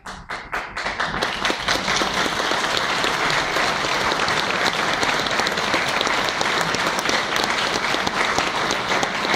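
Audience applauding: many people clapping at once in a sustained round that builds up over the first second.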